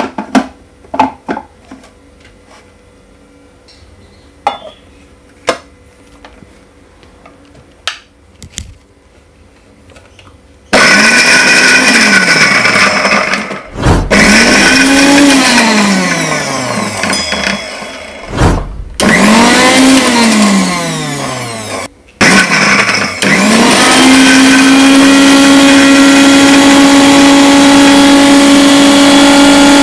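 Kitchen mixer grinder (mixie) grinding chopped fresh ginger in a steel jar. The first ten seconds hold clicks and knocks as the jar and lid are handled. Then the motor runs in several short pulses with brief stops, its pitch sliding between them, and ends with a longer steady run.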